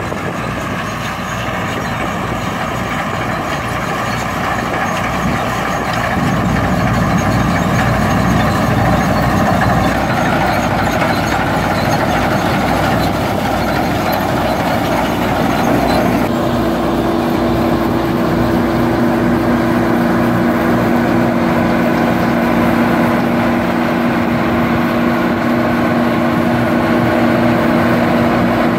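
Bizon Super Z056 combine harvester running steadily under load: engine and threshing machinery droning as the pickup header feeds swathed borage into the machine. About halfway through, a strong steady hum comes in over the drone.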